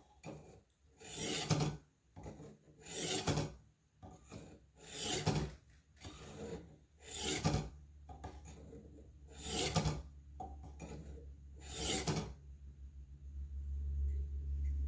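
Buck 119 hunting knife blade drawn through the abrasive rods of a Warthog knife sharpener: six slow scraping strokes about two seconds apart. A low hum comes in near the end.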